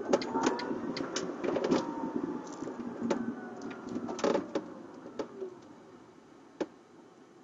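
Tesla electric car heard from inside the cabin while driving: a faint motor whine gliding down in pitch and road noise that fade away as the car slows, with scattered clicks and rattles.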